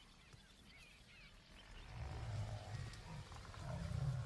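Deep, low animal grunts repeating in pulses, starting about two seconds in and loudest near the end, over faint bird chirps.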